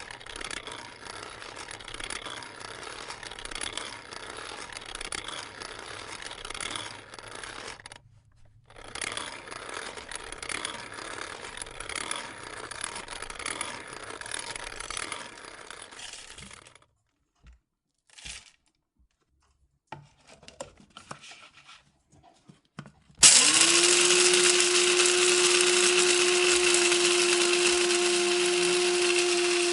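Electric coffee grinder: first a rustling, rattling noise in two stretches of about eight seconds each, then a few clicks. About two-thirds through, the motor switches on suddenly and runs with a steady mechanical hum, loudest of all.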